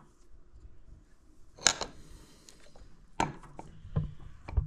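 A few sharp knocks and clinks of metal engine parts being handled and set down on a workbench, the loudest about a second and a half in.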